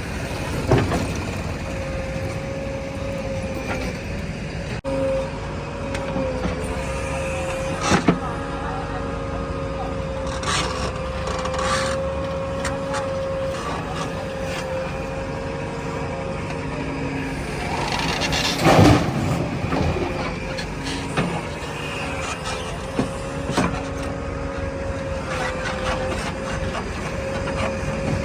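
JCB 3DX backhoe loader running steadily with a held, slightly wavering whine, and a few sharp knocks and clanks, the loudest near the middle.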